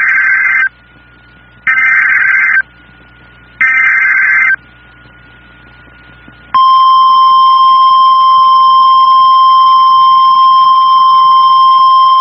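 Emergency Alert System SAME header: three short, loud bursts of warbling digital data tones about two seconds apart. About six and a half seconds in, the steady NOAA Weather Radio 1050 Hz warning alarm tone starts and holds.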